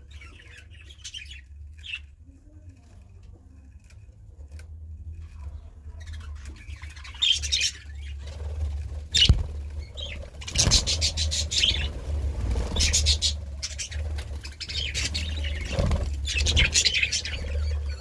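Budgie chirping and chattering in bursts of rapid high warbling, faint at first and louder from about seven seconds in, with a few sharp clicks. A steady low hum runs underneath.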